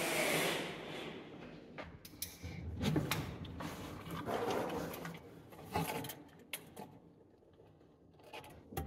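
A cordless drill's whir cuts off about half a second in. Scattered knocks, clicks and rubbing of hands and tools against the wooden cabinet frame follow as it is measured up.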